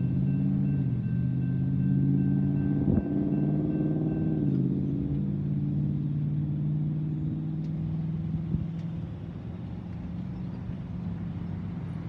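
Railroad crossing bell ringing, stopping about four and a half seconds in as the gates rise, over the engines of cars idling at the crossing and starting to pull away.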